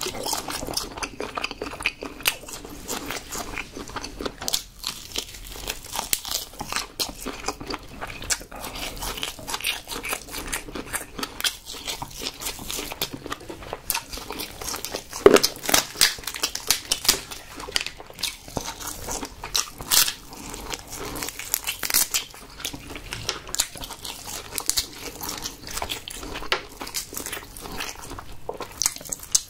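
Close-miked eating of king crab and prawns: wet chewing and crunching mixed with the cracking and picking apart of shell by hand, as many short, irregular cracks and clicks. The loudest cracks come about fifteen seconds in.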